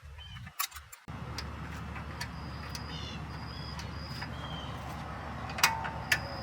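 A few sharp clicks from brake pad hardware being handled and pinched into place: two early on and two close together near the end. Short high bird chirps repeat in the background.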